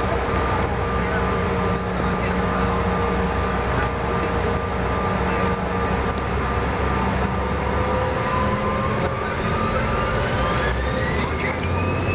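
Jet airliner engines heard from inside the cabin on the runway for takeoff: a steady engine noise with a low hum, and from about eight seconds in a whine that climbs steadily in pitch as the engines spool up.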